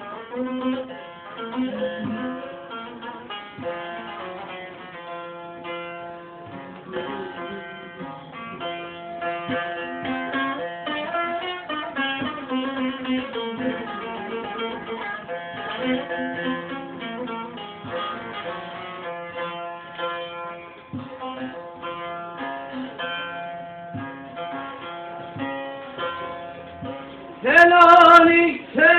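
Instrumental interlude of a Turkish folk song played on a plucked string instrument: a busy melody of quick notes over a steady low tone. Near the end a voice comes in, singing loudly.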